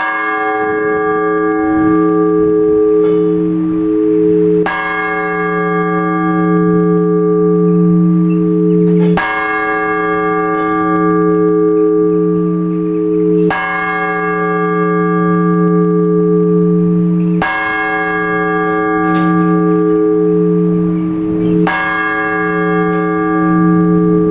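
A large Orthodox church bell struck singly at a slow, even pace, one stroke about every four seconds, six strokes in all. Each stroke rings on through a long decay over a low, pulsing hum. This is the measured ringing of the blagovest, the single-bell ringing that announces a service.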